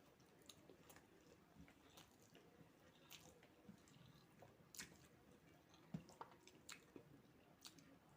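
Faint chewing and wet mouth clicks of someone eating fried rice and chicken curry, with small irregular clicks scattered throughout.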